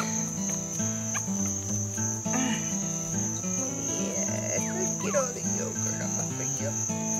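Insect chorus chirring in an unbroken high-pitched drone, over a low hum of steady tones that shift in pitch every second or so.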